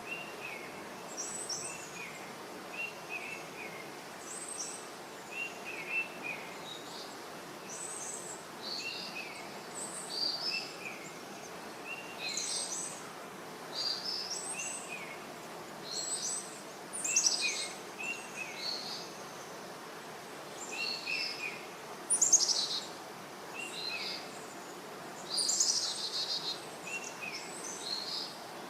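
Small birds chirping in short, repeated high calls every second or two over a faint steady hiss, with a few louder calls in the second half.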